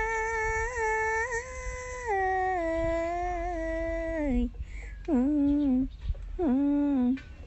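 A single voice holding long, drawn-out notes that step down in pitch with small wobbles, then two short, lower notes near the end.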